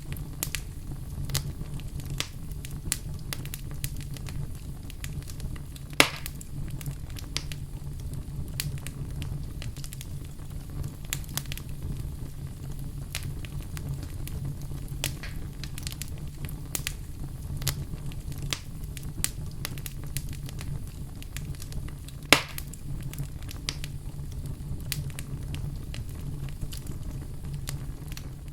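Wood fire burning in a fireplace: a steady low rumble of flames with frequent small crackles and two louder pops, about 6 and 22 seconds in.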